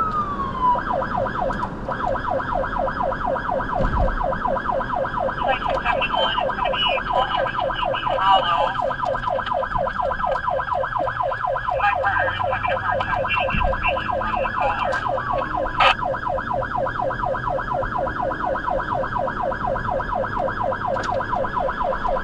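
Electronic emergency-vehicle siren on a 100-watt speaker: a slow wail that switches about a second in to a fast yelp, quick sweeps repeating several times a second.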